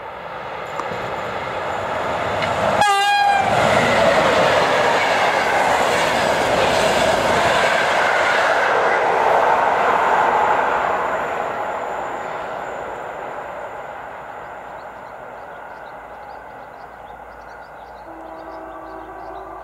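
A PKP class EU07 electric locomotive sounds its horn in one brief blast about three seconds in, the Rp1 'attention' warning. It and its passenger coaches then pass at speed, the wheels rumbling and clattering on the rails, loud for several seconds before fading away.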